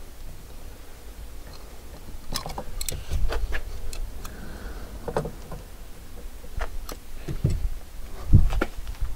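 Hands working loose wiring and trim in a car's boot: scattered light clicks, ticks and rustles, with a few low thuds, the loudest a little past eight seconds in.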